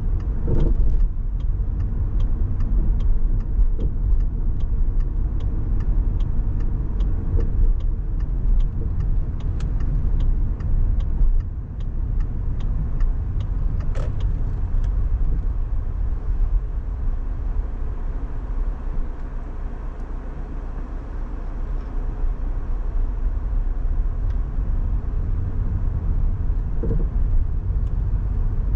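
Car driving along with a steady low rumble of engine and road noise, and a light, fast ticking that stops about halfway through.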